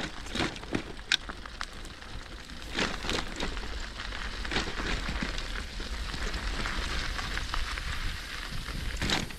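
Bicycle tyres crunching and crackling over a loose stone and gravel track, with a steady low rumble underneath.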